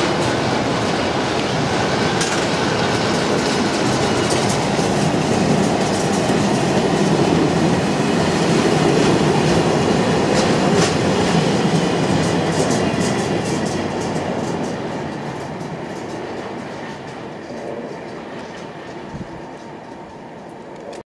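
A freight train of enclosed car-carrier wagons rolling past, a steady rumble of wheels with clicks over the rail joints. It fades gradually as the tail of the train goes by, then cuts off suddenly near the end.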